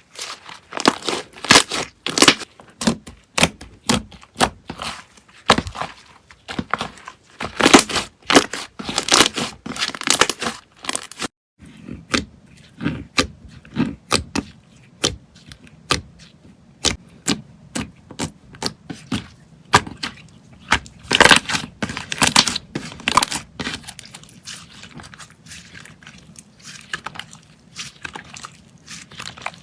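Slime being squeezed, pressed and stretched by hand, giving dense runs of sharp crackling and popping clicks with a brief break about a third of the way in.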